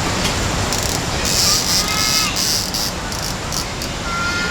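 River water rushing steadily, with a shrill insect buzz pulsing in from about one to three seconds in, and two brief high tones, one near the middle and one near the end.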